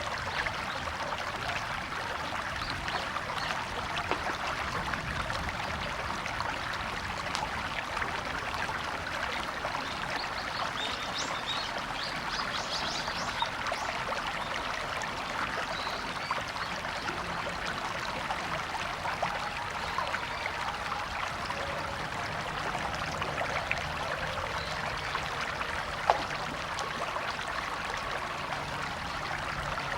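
River water flowing steadily over stones, an even, continuous rush and splash, with one sharp tick near the end.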